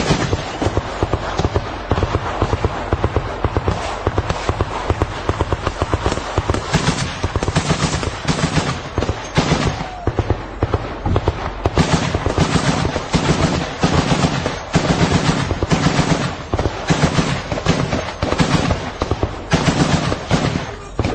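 Machine gun firing: for the first several seconds a dense, nearly continuous crackle of shots, then repeated bursts of rapid fire about a second long with short pauses between them.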